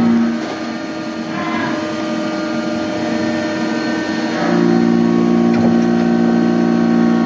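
Hyundai HIT 8 S CNC lathe running with a steady machine hum made of several tones. The louder part of the hum drops away just after the start and comes back about four and a half seconds in, with a few faint clicks and short chirps in between.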